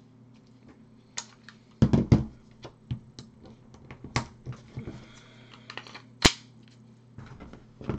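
Sharp metallic clicks and clacks of a Canik TP9 Elite Subcompact pistol being loaded to 16 plus 1: the slide racked to chamber a round and the extended magazine seated. A loud cluster comes about two seconds in, smaller ticks follow, and a single sharp snap comes a little after six seconds.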